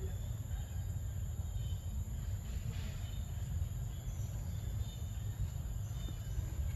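Steady low rumble with a thin, steady high-pitched drone above it, typical of insects.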